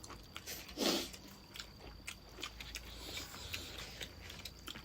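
A person eating close to the microphone: biting and chewing, with many small mouth clicks and one louder crunchy burst about a second in.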